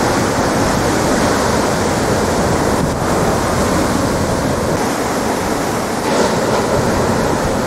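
Heavy ocean surf: large waves breaking and whitewater churning in a loud, steady rush.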